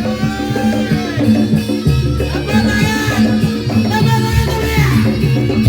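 Javanese barongan accompaniment music playing loud: drums keep a steady beat under a melody line that slides up and down in pitch.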